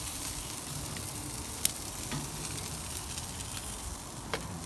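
Chicken and brisket sizzling on the grate of a wood-fired grill, a steady hiss. Metal tongs click against the meat and grate a few times, sharpest about a second and a half in.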